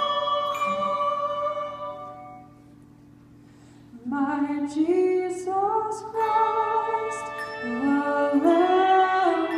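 Handbell choir hymn music with singing: a held chord rings and fades away over about two and a half seconds, then after a brief lull the music comes back in about four seconds in with notes stepping upward.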